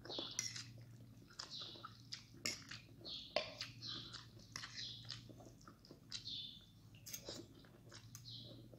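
A person eating instant noodles in broth close to the microphone: repeated slurps of noodle strands and wet chewing and mouth clicks, over a faint steady hum.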